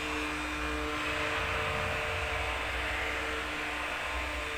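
Electric hand blender running steadily in a steel bowl, churning butter.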